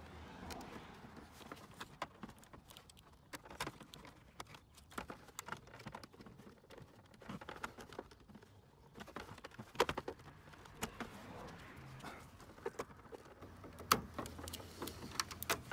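Scattered small clicks and snaps of hand cutters snipping plastic zip ties and of hard plastic grille parts being handled, with a few sharper clicks about ten seconds in and near the end.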